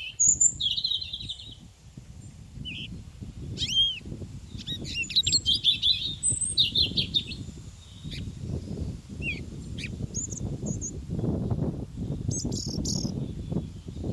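Several songbirds chirping and singing in short, quick, high trilled phrases, one after another, over a low rumbling noise that swells in the second half.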